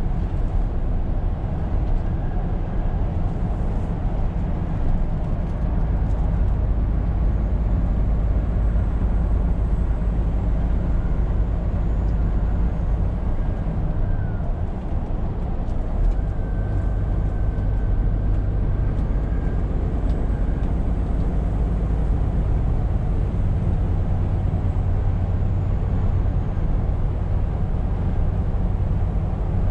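Scania R520 truck on the move: a steady low engine drone with road and tyre noise, even throughout with no gear changes or sudden events standing out.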